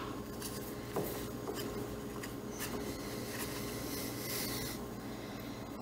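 Paper rustling and rubbing as a small graph-paper memo book is handled and closed, with two light clicks, one at the start and one about a second in.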